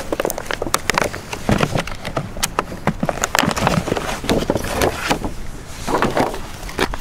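Plastic box of cardboard firework tubes being handled close to the microphone: a dense run of irregular sharp clicks, knocks and rustles.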